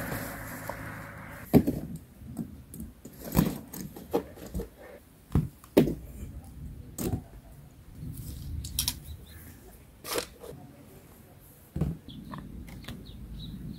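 Uneven knocks, clacks and clinks, about ten in all, as gear is set into an inflatable kayak: seats with their strap buckles, foam foot rollers and a paddle handled and put in place.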